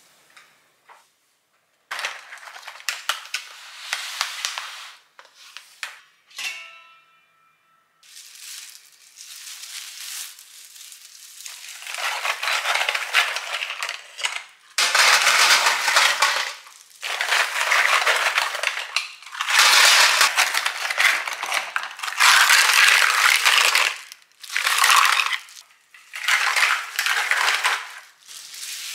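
Scallop shells clattering and grinding against one another as handfuls are scooped from a box and dropped into a stainless steel pot. The sound comes in repeated bursts of a second or two, full of sharp clicks.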